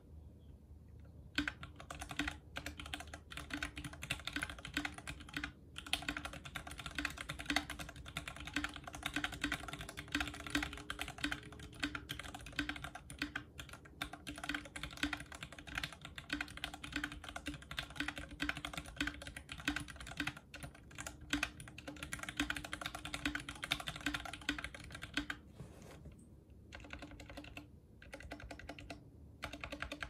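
Fast, continuous typing on a 60% aluminum-case custom mechanical keyboard with lubed vintage Cherry MX Black linear switches and GMK ABS keycaps: a dense run of keystrokes after a short pause at the start, broken by a few brief pauses near the end.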